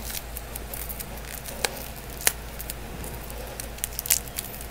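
Clear plastic shrink-wrap being picked at and peeled off a cardboard card box by hand: scattered faint crinkles and crackles, with a few sharper clicks.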